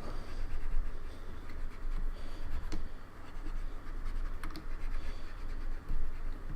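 Wet cotton swab scrubbing and scratching at the plastic of a Logitech K360 keyboard's sticking keys, uneven and continuous, with a low bumping rumble and a couple of sharp plastic clicks.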